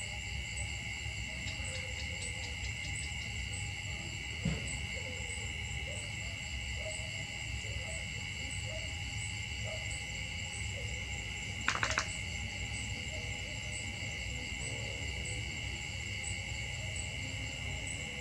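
Steady insect chorus with an evenly pulsing high buzz over a low rumble, broken about twelve seconds in by a short cluster of sharp clicks.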